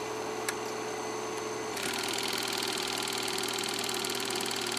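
Steady hum and hiss of an analog video-tape glitch effect, with a sharp click about half a second in and the hiss turning brighter shortly before two seconds in.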